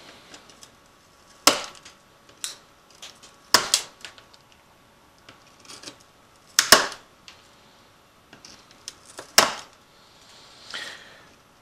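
Pliers cracking and snapping chunks of hard potting out of an e-bike voltage regulator's case: four loud sharp snaps spread through, with lighter clicks between them and a softer scrape near the end.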